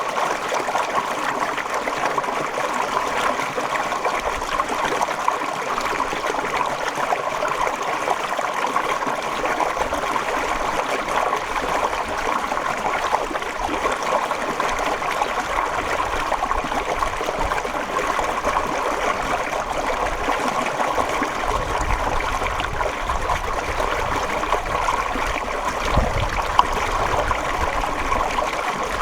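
Water flowing steadily, an even rushing noise. A low rumble joins in about two-thirds of the way through.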